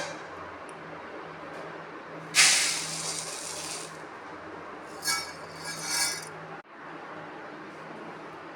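Kitchen cooking sounds: a sudden loud hiss about two seconds in that fades over a second or so, then short clinks of metal or glass utensils around five and six seconds, over a steady low hum.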